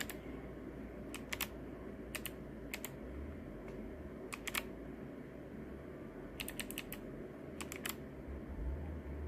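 Keys on a low-profile mechanical keyboard being pressed in short scattered clusters of two or three clicks, with pauses between.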